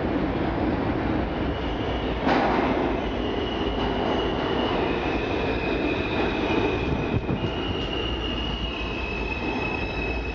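Alstom R160A-2 subway train pulling into an underground station: a steady rumble of wheels on rail with a high squeal that starts about a second and a half in. There is a loud knock about two seconds in.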